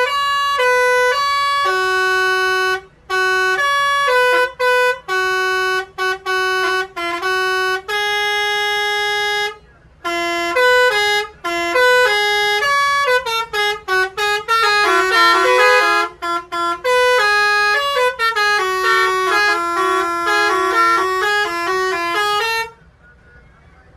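Telolet bus horn, a set of multi-tone air horns, playing a tune of short and held notes that gets quicker and busier in the second half, then cuts off suddenly near the end.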